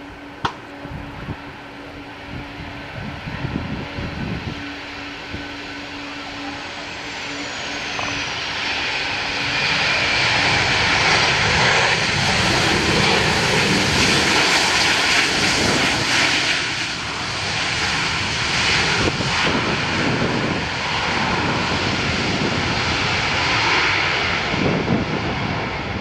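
Boeing 737-800's CFM56 turbofan engines on a landing pass: a high whine falls in pitch as the jet comes in, then a loud, steady rush of engine noise builds as it touches down and rolls past, easing a little near the end. A single sharp click sounds near the start.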